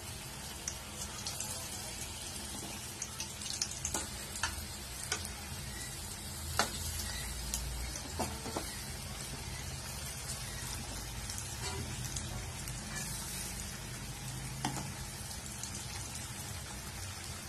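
Onion pakoras in gram-flour batter deep-frying in hot oil in an aluminium kadhai: a steady sizzle, with occasional light clicks as a slotted metal spoon turns them against the pan.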